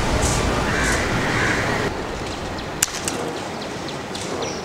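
Outdoor background noise: a steady low rumble that drops away about two seconds in, then a quieter hiss with one sharp click and a few faint high chirps.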